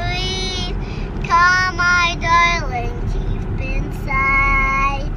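A child singing high, drawn-out notes in short phrases, over the low rumble of a car in motion inside the cabin.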